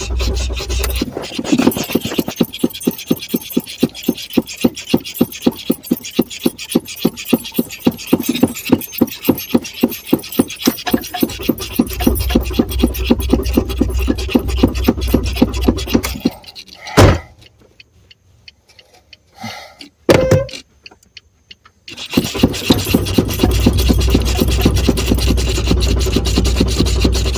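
Car engine cranking on its starter without firing, in a fast, even beat that breaks off about two-thirds of the way through; the engine will not catch because the car has run out of gas. A loud knock and a second thump follow in a short quiet spell, then the cranking starts up again near the end.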